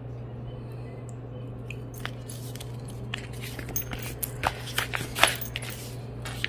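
Paper takeout menu rustling and crinkling as it is handled and unfolded by hand, a run of short crackles starting about two seconds in, over a steady low hum.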